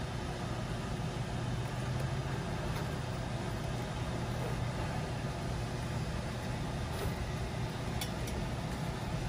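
Audi car idling, a steady low hum heard from inside the cabin with the window down, with a couple of faint clicks about eight seconds in.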